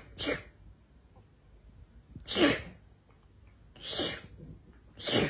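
A cat making short, sharp, breathy bursts of sound, five in all: two in quick succession at the start, then one about every second and a half.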